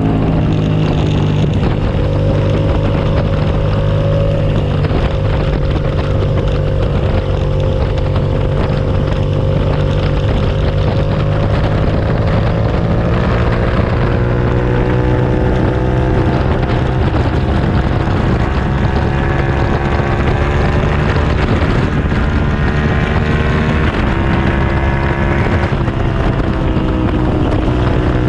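2007 Suzuki SV650S's V-twin engine under way at speed, its note climbing slowly for several seconds and then dropping about three seconds before the end, with wind rushing over the microphone.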